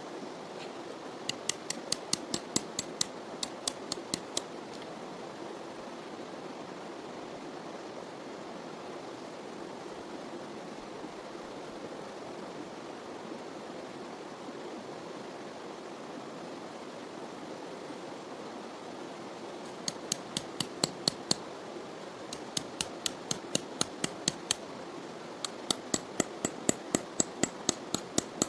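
Runs of quick, sharp taps or clicks, about four or five a second, over a steady rushing noise. The taps come for a few seconds near the start and again for the last several seconds.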